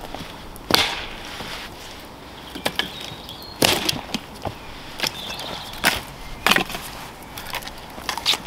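Dead sticks snapping as firewood is broken up by hand and underfoot: a string of sharp woody cracks at uneven spacing, about one a second.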